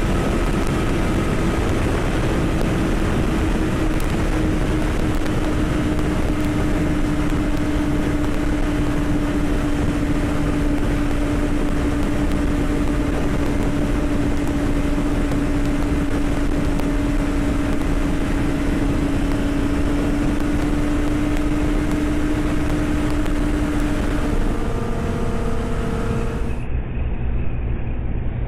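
Motorcycle engine holding a steady cruise under heavy wind rush, its note sinking very slightly. Near the end the engine note changes, then the sound turns duller as its top end cuts off.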